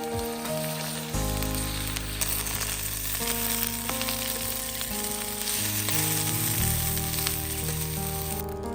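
Food sizzling and frying in a hot pan, the sizzle cutting off shortly before the end, over background music.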